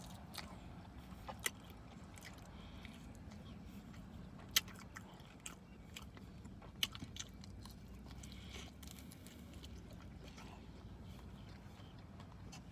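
Close-up chewing and biting on chicken wings: quiet mouth sounds with a few sharp crunches or clicks, the loudest about four and a half seconds in, over a steady low hum.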